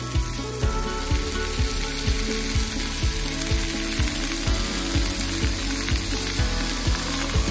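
Sliced onions and bell peppers sizzling in a stainless steel frying pan, under background music with a steady beat.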